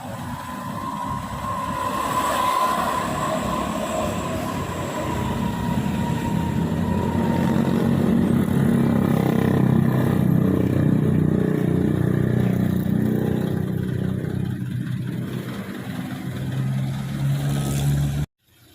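Heavy bus diesel engine running as the bus passes close by, the rumble building to its loudest midway. A single high whine glides up in the first seconds and then fades. The sound cuts off suddenly near the end.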